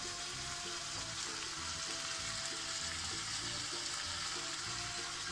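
Food sizzling steadily in a pan on the stove while it is stirred with a wooden spoon, with soft background music underneath.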